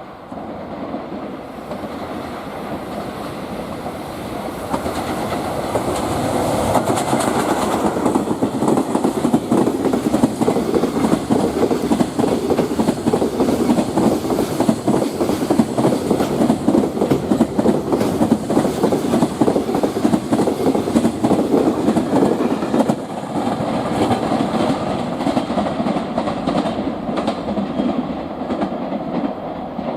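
Freight train of container wagons passing, steel wheels clattering rapidly over the rail joints. The sound builds over the first few seconds, stays loud, and eases a little near the end.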